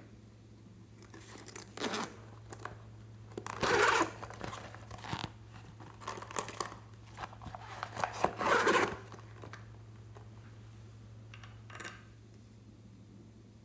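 Glossy plastic shell-shaped pouch being handled and opened: crinkling and rustling in several short bursts, the loudest about 4 s and again about 8 to 9 s in.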